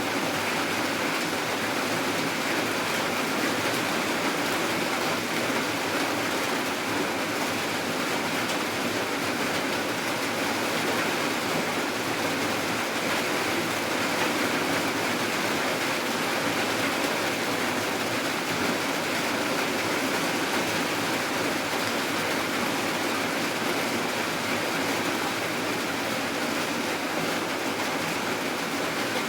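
Steady rain falling, a constant even hiss that stays the same throughout.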